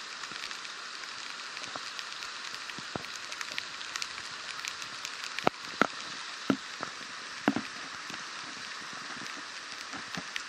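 Steady hiss of rain and a flooded creek's fast brown water rushing past, with scattered sharp taps, the loudest few about halfway through.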